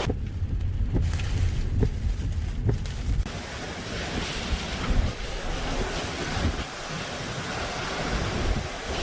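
Hurricane Laura's winds buffeting the microphone in low, rumbling gusts. About three seconds in, a steady, full hiss of storm noise joins in and keeps going alongside the rumble.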